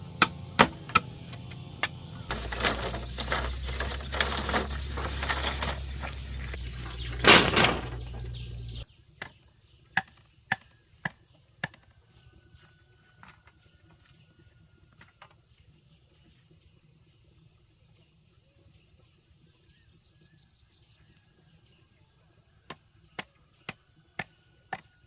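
Repeated sharp knocks, about two a second through the first dozen seconds and again near the end, over a steady high chirring of crickets. A loud rushing noise under the knocks in the first several seconds cuts off suddenly.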